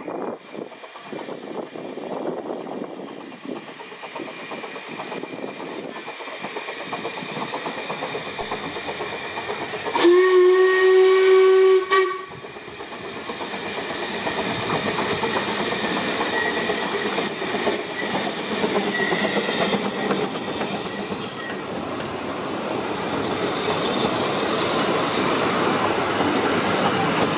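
Narrow-gauge steam locomotive approaching with its exhaust beating, then sounding one loud steam whistle blast of about two seconds partway through. After that comes the growing rumble and rattle of its train of coaches rolling past close by, with brief hissing and squealing.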